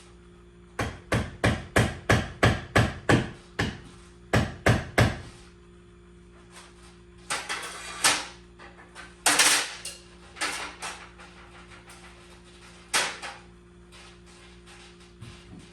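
Hammer blows, a quick run of about fifteen sharp strikes at roughly three a second, then a few longer, harsher scraping noises.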